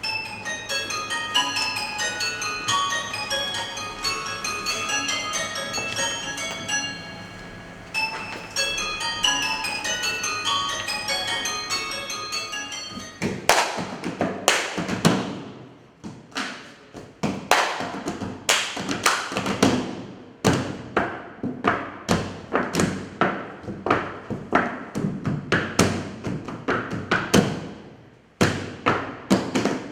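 Percussion music: quick patterns of bright, high struck notes on a tuned instrument, pausing briefly, then from about halfway on a run of sharp separate percussion strikes, one or two a second, each ringing away.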